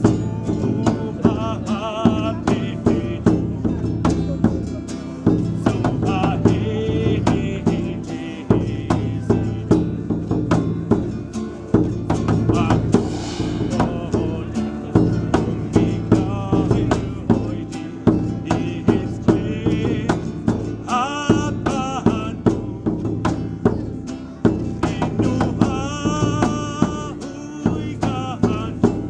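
Acoustic folk song: a large hand-held frame drum struck with a stick in a steady beat, an acoustic guitar, and a singing voice that comes and goes between phrases.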